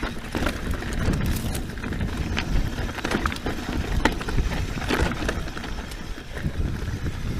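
Scott Genius full-suspension mountain bike rolling along a dry, rocky dirt singletrack: a steady rumble of tyres on dirt with many short clicks and knocks as the bike rattles over rocks and roots.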